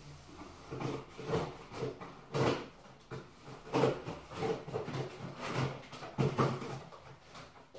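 Cardboard box and packaging being opened by hand: an irregular run of short rubs, scrapes and rustles, about two a second.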